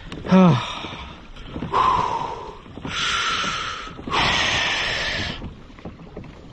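A man's short, falling groan of pain, then three heavy breaths blown out one after another, the last the longest. He is breathing through the pain of a fresh catfish-spine puncture in his hand.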